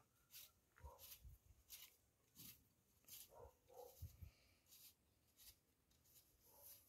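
Near silence, with faint scattered knocks and light ticks as a metal weatherhead is hand-threaded onto an oiled galvanized conduit.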